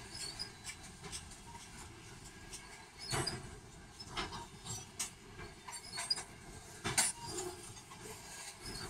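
Loaded freight cars of a Canadian National train rolling past: a steady rumble of steel wheels on the rails, broken by a sharp click about once a second, loudest a little after three seconds in and again near seven seconds.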